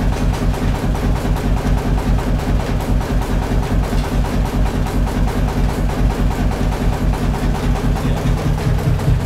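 Silver-Lite light plant's Le Roi engine running steadily at speed, driving its DC generator, with an even, regular beat.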